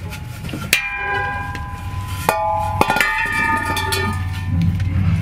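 Cut-off exhaust resonator can clanging against metal and concrete as it is pulled free and dropped: four sharp metallic strikes, each ringing on briefly, the first about a second in and three close together near the middle.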